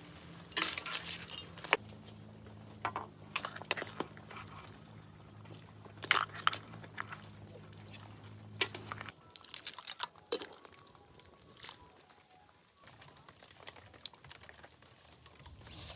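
A metal ladle clinks and scrapes in a wok of simmering mud crab and bok choy, over a steady low hum. About nine seconds in the hum stops. Soft cracks and crunches follow as cooked crab shell is broken and eaten, with a thin, high, steady tone near the end.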